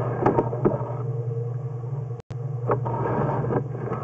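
A steady low mechanical hum with scattered clicks and rattles, cutting out for an instant just after two seconds in.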